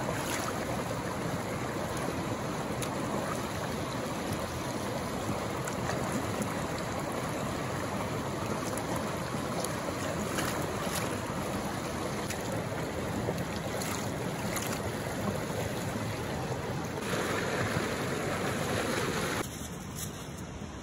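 River water rushing over rocks, with hands splashing as a fish is rinsed in the current. Near the end the rushing drops suddenly to a quieter flow.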